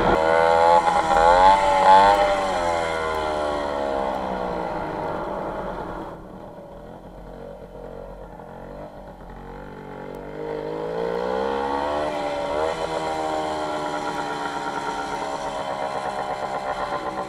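WSK 125 motorcycle's single-cylinder two-stroke engine under way. It revs up in the first two seconds, then its pitch falls away and it runs quieter for a few seconds, and it rises again about ten seconds in before holding steady near the end.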